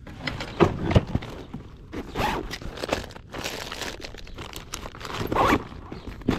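Plastic soft-bait packets crinkling and rustling as a hand rummages through a tackle bag, in irregular bursts. Two sharp knocks come near the start.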